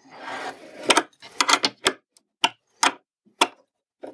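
Spanner tightening the lock nut on a pulley axle: a brief rub of handling, then about eight sharp metal clicks at uneven spacing as the wrench is worked around the nut.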